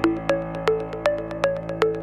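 Electronic intro music: short plucked synthesizer notes repeating quickly and evenly over a sustained low chord.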